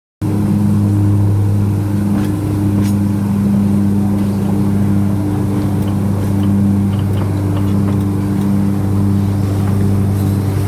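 A narrow-gauge train's engine running steadily with a low, even hum, cutting in abruptly just after the start.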